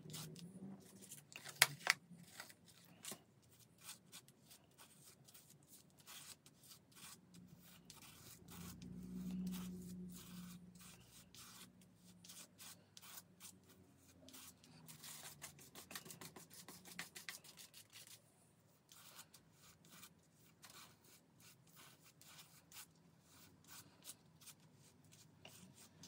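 Plastic palette knife scraping and spreading gritty texture paste, made of clear gesso and baking powder, across a stencil: a faint run of soft scrapes and small taps, with a couple of sharper ticks about a second and a half in.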